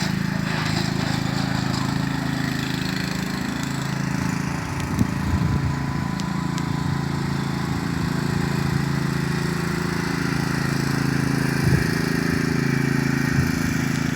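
Troy-Bilt lawn mower engine running steadily, with a few brief knocks about five seconds in and again near the end.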